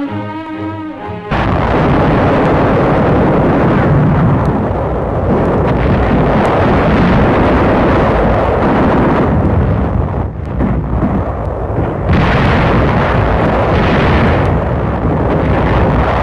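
A brass music cue breaks off about a second in, giving way to a loud, continuous din of battle: shell bursts and explosions run together into a dense rumble, with a brief lull about ten seconds in and another near twelve seconds.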